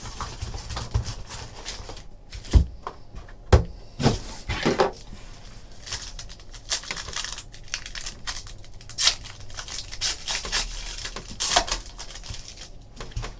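Foil wrapper of a Panini Titanium hockey card pack crinkling and tearing as the pack is pulled from its box and ripped open, and cards slide out of the wrapper. Two sharp knocks about a second apart, two to four seconds in.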